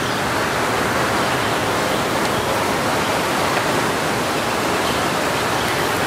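Windy outdoor ambience: a steady, even hiss of wind noise, recorded through a Zoom H2N with a furry dead-cat windscreen and low-cut filter.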